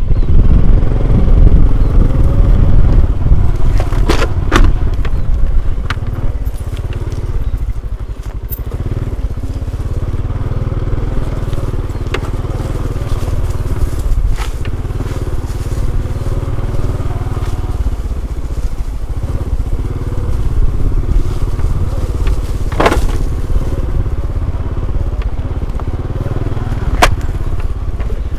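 A small engine running steadily under a heavy low rumble, with a few sharp knocks, the clearest about 23 seconds in.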